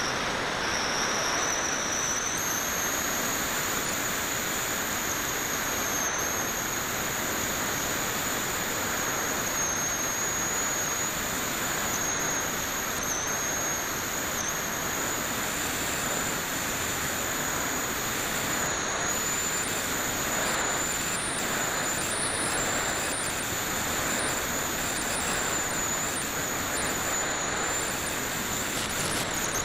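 Wind rushing over a Parkzone Radian RC glider's onboard camera in flight: a steady loud hiss with a constant high-pitched whine.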